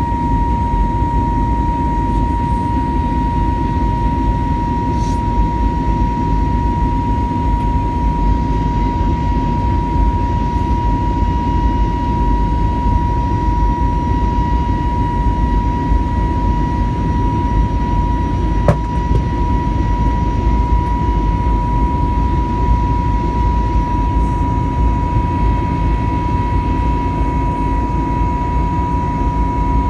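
Airbus A320neo airliner engines and airflow heard inside the cabin: a steady, loud rumble with a steady high whine running through it. A single click about 19 seconds in.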